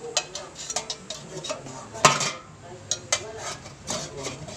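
A metal utensil clinking and scraping against an air fryer's nonstick basket and drawer: a run of light clicks and knocks, with one louder knock about two seconds in.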